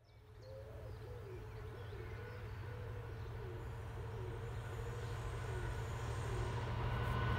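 Low rumble of an approaching train, growing steadily louder, with a pigeon cooing repeatedly over it.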